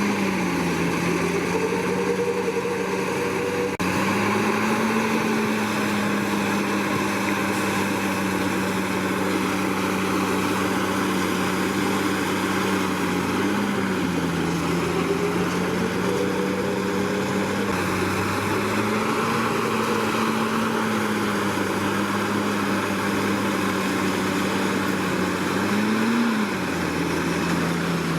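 Komatsu D61PX bulldozer's diesel engine running continuously, its pitch dipping and rising several times as the load changes, with a second, higher tone gliding up and down at times.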